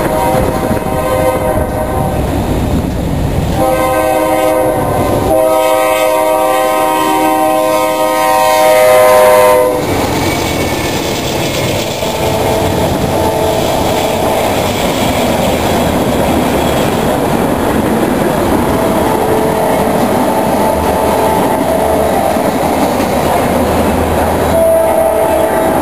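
Diesel freight locomotive horn blowing for about ten seconds as BNSF locomotives pass, loudest and dropping in pitch as they go by. The horn is followed by the steady rumble and clickety-clack of tank cars rolling past. Another horn sounds briefly near the end.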